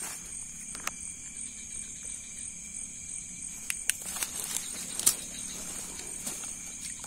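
Steady, high-pitched chorus of night insects with an even pulsing, a fainter lower steady tone beneath it, and a handful of short sharp clicks scattered through.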